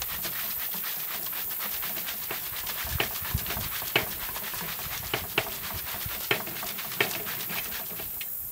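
Water sloshing and splashing inside a plastic 2-liter soda bottle being shaken hard on a CO2 line, a rapid patter of small splashes with a few sharper knocks. The shaking speeds up how fast the water absorbs the carbon dioxide.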